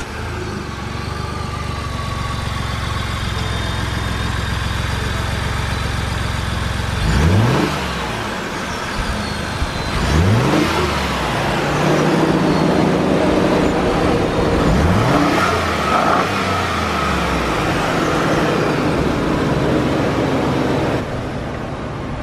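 Ford F-150's 3.5L twin-turbo EcoBoost V6 on its stock intake, idling and then revved: quick rises in revs about 7, 10 and 15 seconds in, then held at higher revs for several seconds before it drops back toward idle near the end.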